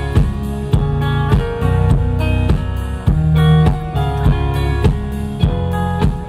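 Live band music with no singing: guitar chords over a steady drum beat.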